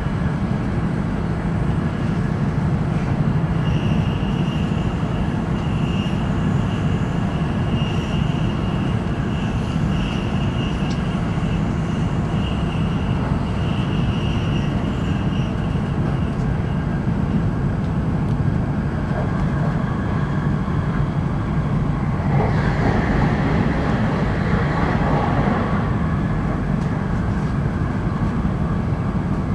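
E5 series Shinkansen running at speed, heard inside the passenger cabin: a steady low rumble, with a thin high whine through the first half. A brief rush of louder hissing noise comes about three quarters of the way through.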